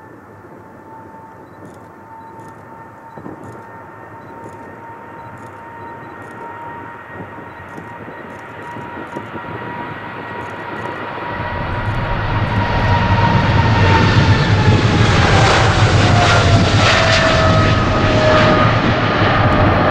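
Boeing 777-200F freighter's twin GE90 turbofans at takeoff thrust, growing louder as the jet rolls down the runway and lifts off. A high engine whine holds steady, then falls in pitch from about two-thirds of the way through as the jet passes. A deep rumble builds at the same time and is loudest near the end.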